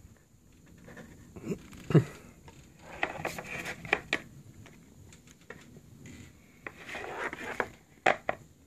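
Handling noise from a leather long wallet and its cardboard gift box being moved about on a desk: a low thump about two seconds in, stretches of rustling and scraping, and a couple of sharp clicks near the end.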